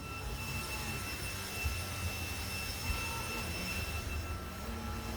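Household vacuum cleaner running steadily: a high motor whine over a rushing of air.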